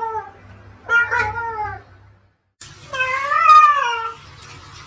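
Domestic cat meowing: two drawn-out meows, the first falling in pitch, the second rising and then falling.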